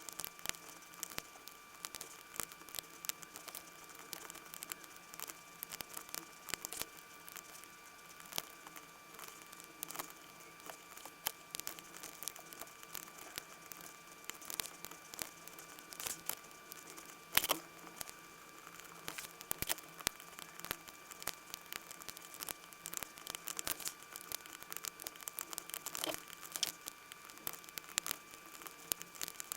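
Lock picks and tension wrench working inside an Assa Twin 6000 high-security cylinder: a continuous run of small irregular metallic clicks and scrapes as the pins are picked, with one sharper click about two-thirds of the way through. A faint steady high tone runs underneath.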